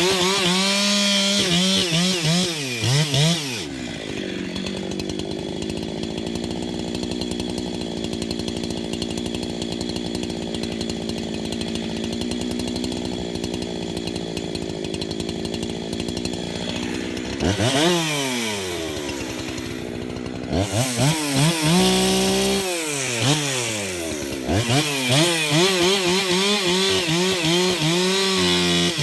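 Husqvarna 372XP two-stroke chainsaw with a long bar bucking big Douglas fir logs: the engine runs at full throttle with its pitch sagging and recovering under the cut, drops to a steady idle for about thirteen seconds, is blipped up and down, then goes back to full-throttle cutting near the end.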